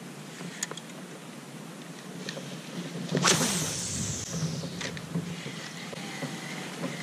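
A spinning fishing reel being worked: a sudden swish about three seconds in, likely the cast with line paying off the spool, then a low steady whir with small ticks as the reel handle is cranked to retrieve the lure.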